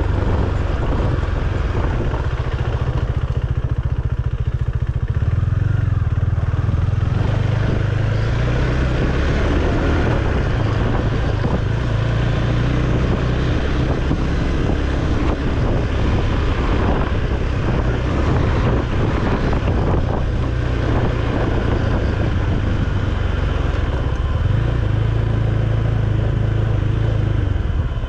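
KTM Duke 390's single-cylinder engine running as the bike is ridden, a steady low hum whose pitch shifts up and down a few times with the throttle.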